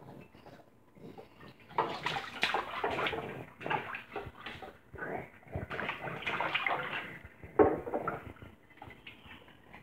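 A baby splashing bathwater with its hands in a stainless steel kitchen sink. The first couple of seconds are quiet, then the splashing comes in irregular bursts, with one sharp slap near the end.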